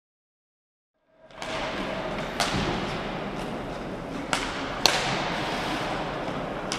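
About a second of silence, then roller hockey play fades in: a steady rumble of quad skate wheels on the hall floor, broken by sharp cracks of sticks and the hard ball, three of them, the loudest about five seconds in.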